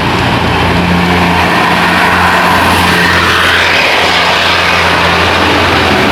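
A large bus driving past close by: the engine's low, steady hum under tyre and road noise that swells about three to four seconds in as it passes.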